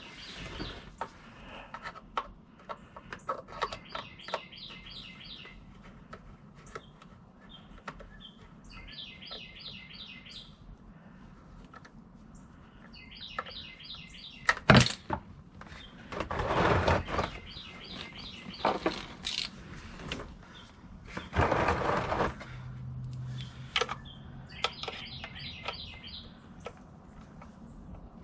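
A hand ratchet clicking in short bursts of rapid, even ticks, repeated about five times, as the new transmission filter's screws are run in. A sharp knock about fifteen seconds in, and two spells of tool clatter.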